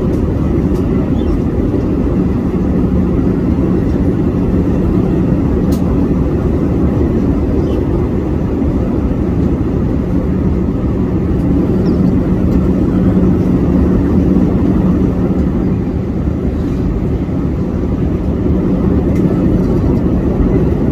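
Steady, even drone of a fixed-wing airplane's engines and rushing air, low-pitched with a constant hum running through it.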